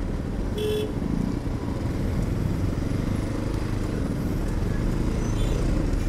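KTM 200 Duke's single-cylinder engine running at low revs as the bike creeps through slow traffic. A short horn beep sounds about half a second in.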